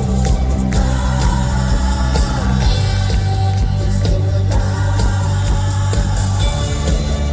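Live pop-rock concert music: a band playing with heavy sustained bass and wordless singing or crowd vocals over it.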